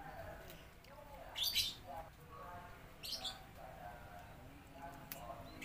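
Birds chirping in the background, with two short crunchy bites at close range, about a second and a half in and again about three seconds in.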